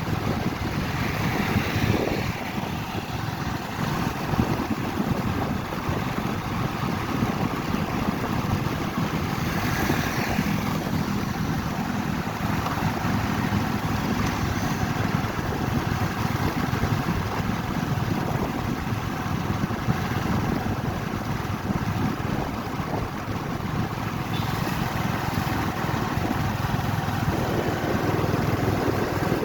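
Steady rushing road and wind noise of a motorcycle on the move, with wind buffeting the microphone.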